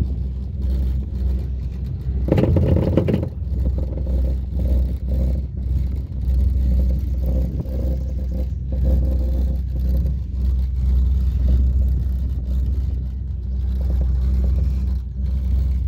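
Steady low rumble of a ropeway gondola cabin travelling along its cable, heard from inside the open-sided car, with a brief louder rattle about two and a half seconds in.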